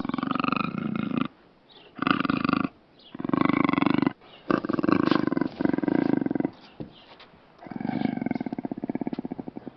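Big-cat roars and growls presented as the call of a jaglion (jaguar-lion hybrid): about six loud calls with short gaps between them, the last one breaking into rapid pulses.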